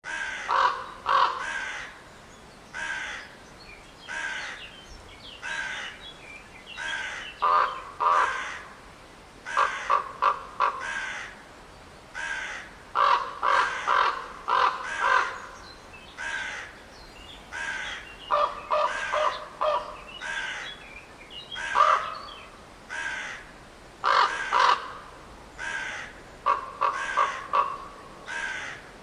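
Crow cawing over and over, the caws coming singly and in quick runs of three or four, with short gaps between.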